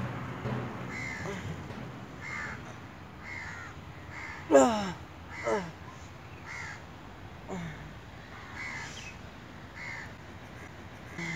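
Crows cawing, short calls repeating about once a second. About four and a half seconds in comes a loud sound sliding down in pitch, followed by two shorter falling ones.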